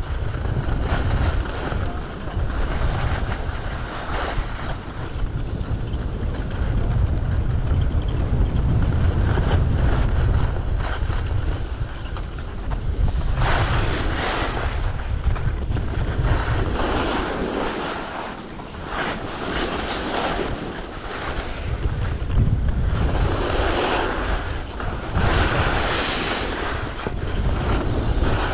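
Wind buffeting the microphone of a skier's camera while skiing downhill, a steady low rumble. From about halfway through, rushes of scraping hiss come and go as the skis carve turns on the packed snow.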